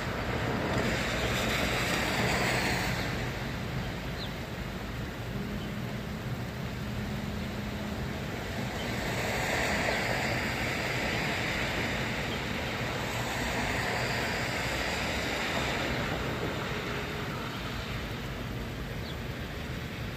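Tyres hissing on wet pavement, swelling and fading three times as cars pass, over a steady rush of rain.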